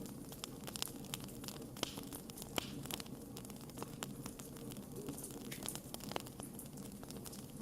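Wood fire burning in a fireplace, crackling with frequent irregular sharp pops over a low steady background. The loudest snaps come about two seconds in and again just after.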